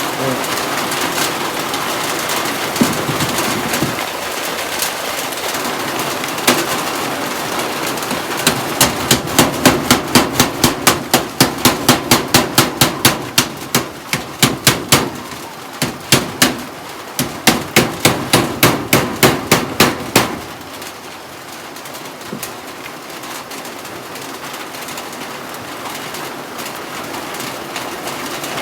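Rapid hammer blows, about three a second, in runs with short pauses from about 8 seconds in until about 20 seconds in, over a steady hiss of heavy rain.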